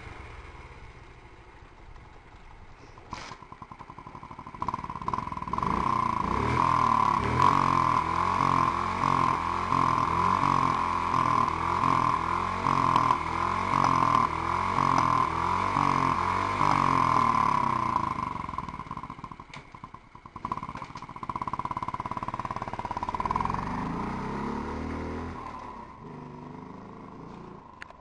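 Honda Monkey's single-cylinder four-stroke engine idling, then revved over and over from about five seconds in, the revs rising and falling about once a second. Near the end the revs climb in one long sweep as the bike pulls away.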